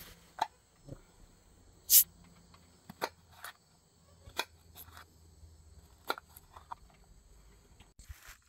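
Scattered small clicks and knocks, with one brief, sharper high-pitched clink about two seconds in, over a faint steady high-pitched tone.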